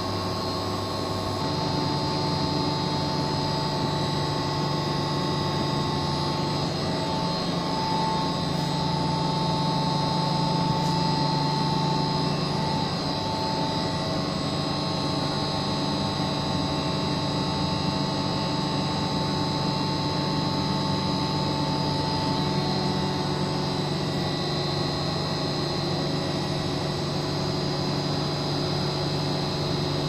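Water-cooled chiller plant running: compressors and circulating pumps giving a steady mechanical hum with several constant tones over a noise floor.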